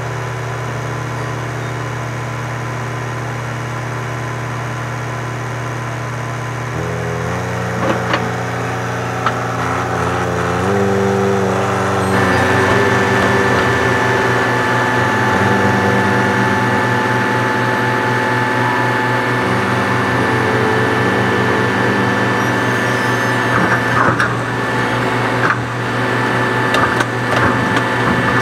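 John Deere 6115M tractor's diesel engine running under loader work, revving up in steps over the first dozen seconds and then holding higher, with a steady high whine while it works. A few short knocks come through as the bucket scoops and dumps lime.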